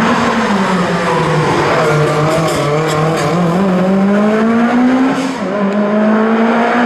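Rally car engine under load, its note dropping early on, then climbing steadily as it revs up, dipping sharply a little after five seconds as the driver shifts or lifts, then holding steady.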